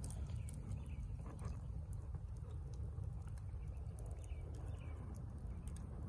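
Twigs and branches burning in an open steel fire pit, crackling with scattered sharp pops over a steady low rumble.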